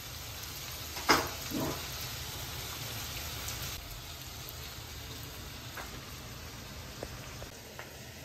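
Sliced onions and whole spices frying in oil in a wok, a steady fine sizzle, with a brief louder sound about a second in.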